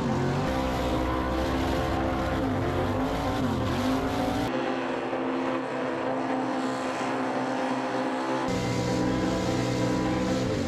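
900-horsepower V8 swamp buggy engines racing at high revs. The pitch dips sharply and climbs back a few times, once near the start, again about three and a half seconds in, and again near the end. For a few seconds in the middle the sound is thinner, with the bass gone.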